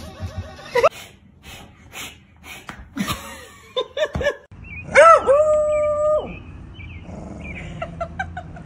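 A dog whining and yelping in short cries, then one loud drawn-out cry held on a steady pitch for about a second, about five seconds in.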